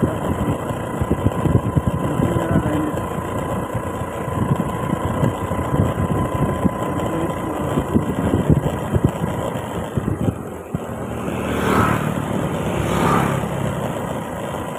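Scooter engine running while riding along, with wind rumbling on the microphone. About three-quarters of the way in, two short swells of hiss rise and fade.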